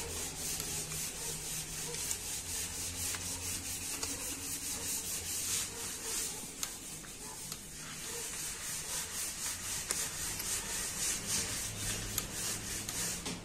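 The ratchet of a click-type torque wrench clicking in a long, fast run as cylinder head bolts are run down and tightened in the first torque pass.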